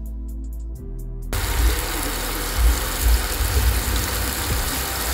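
Chopped rosemary sizzling in hot olive oil in a frying pan, a steady hiss that starts suddenly about a second in. Soft background music plays before it.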